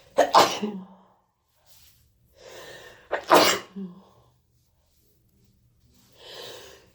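A person sneezing twice, about three seconds apart, each sneeze preceded by a breath in, with another breath in near the end. It is a fit of repeated sneezing from being sick, with a nose that won't stop running.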